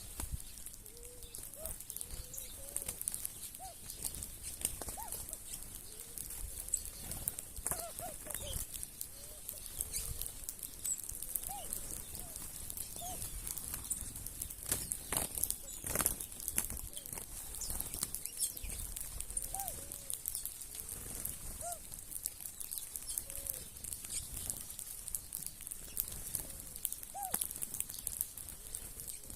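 A flock of birds feeding on scattered cracked corn. Short low calls come every second or two, with sharp ticks and flutters among them and a louder burst about sixteen seconds in, over a steady high hiss.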